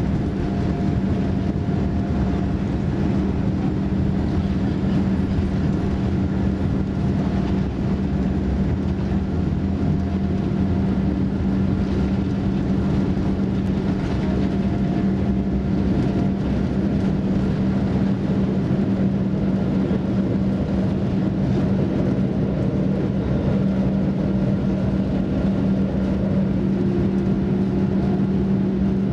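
Cabin sound of a Boeing 787-9's General Electric GEnx engines at takeoff thrust through the takeoff roll and initial climb: a loud, steady rumble with a constant low hum.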